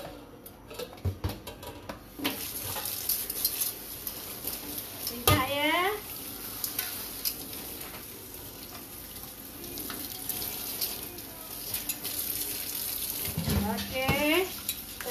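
Hot cooking oil in a wok over a gas flame, hissing and crackling steadily. The hiss starts suddenly about two seconds in.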